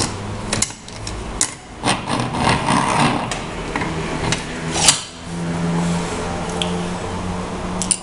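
Metal clicks, taps and scraping from hands working the top of a vintage Leinbrock's Ideal manual coffee grinder: the step-adjuster collar, cap nut and crank being handled. There are several sharp clicks, with a stretch of rubbing or scraping in between.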